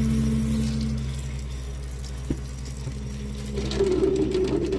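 Steady low electric hum, with a rougher, gurgling sound joining it after about three and a half seconds.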